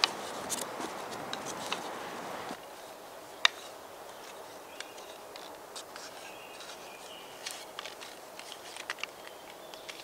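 Handling of a homemade wooden frame saw (bow saw) as it is assembled and its tension cord twisted tight: soft rustling, then scattered light clicks and knocks of wood and cord, one sharper click about three and a half seconds in.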